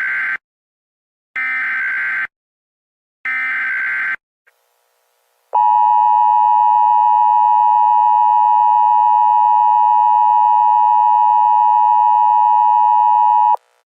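Emergency Alert System SAME header: three short bursts of screechy digital data tones, each about a second long and a second apart, then the two-tone EAS attention signal held steady for about eight seconds and cut off suddenly, the standard opening of an emergency alert broadcast.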